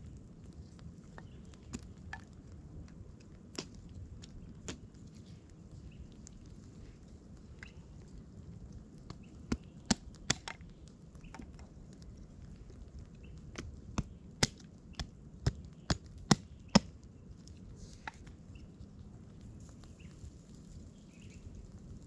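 Dry twigs snapped by hand for kindling: a few scattered sharp cracks, a quick cluster of three about ten seconds in, then a run of about seven snaps, roughly two a second, a few seconds later.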